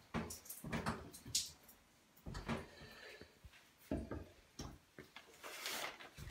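Scattered soft knocks, clicks and rustles of a plastic test-kit case being handled at a sink. A plastic packet crinkles near the end as a sealed syringe is picked out.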